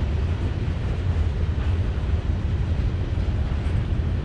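Freight train cars rolling past on the rails, a steady low rumble of wheels on track as tank cars give way to boxcars.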